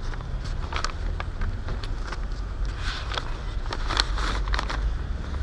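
A bag and its contents being handled, with scattered rustles and clicks, over a steady low rumble.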